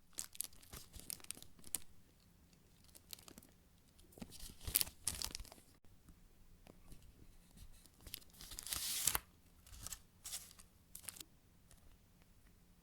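Slow-rising chocolate-bar squishy toy being handled and squeezed by hand, giving irregular crackly rustling bursts. The loudest burst comes about five seconds in, and a longer one comes around nine seconds in.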